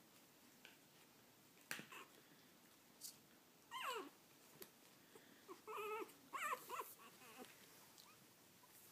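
Young puppies whimpering and squeaking in a few short, high-pitched, wavering cries: one about four seconds in and a cluster of several around six to seven seconds in.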